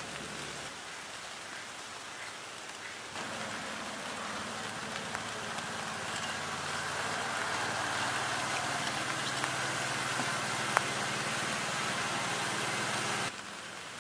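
Steady rain falling, an even hiss that steps louder about three seconds in and drops back near the end. A faint low hum runs under it through the middle, and there is a single sharp tick about eleven seconds in.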